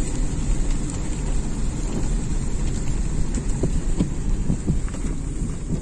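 Steady low rumble of a car driving slowly on a wet road, heard from inside the cabin, with a faint hiss over it and a few light ticks.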